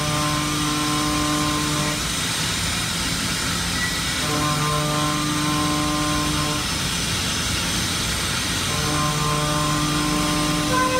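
2008 Fryer MC-45 CNC vertical milling machine cutting a cast part under coolant. A steady machine noise runs throughout, and a pitched hum comes and goes three times, about two seconds each.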